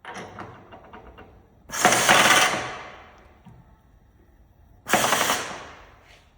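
Power drawbar on a Trak DPM5 milling machine head hammering in two short air-driven bursts, about two and five seconds in, with lighter clicks and rattling before the first.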